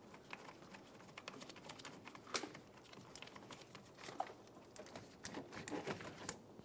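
Faint, scattered clicks and light taps as the negative battery cable and its terminal are worked off the battery after being loosened with an 8 mm wrench, with the sharpest click about two and a half seconds in and a short run of small clicks near the end.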